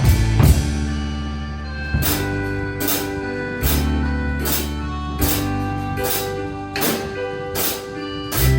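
Drum kit played along with a recorded trot backing track of held bass and keyboard notes, keeping a steady beat with a sharp cymbal hit about every 0.8 seconds from two seconds in.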